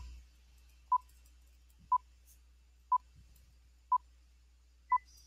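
Electronic countdown beeps: five short, identical tones one second apart, then a single higher-pitched beep near the end.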